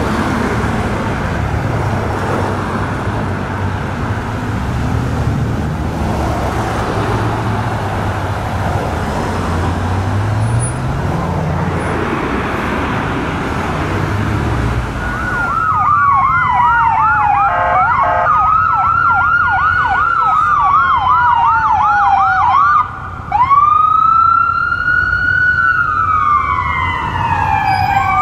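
Road traffic and idling engines, with one vehicle's engine revving up about halfway through. Then, after an abrupt change about halfway in, an ambulance's electronic siren runs through a fast yelp, a brief blast, and slow rising-and-falling wails with a short break between them.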